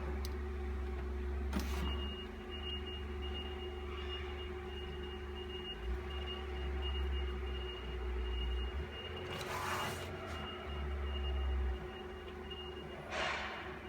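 HP ProLiant ML350 G6 server running steadily during its slow power-on start-up: a constant hum with a faint high whine, broken by a few brief noises near the start, middle and end.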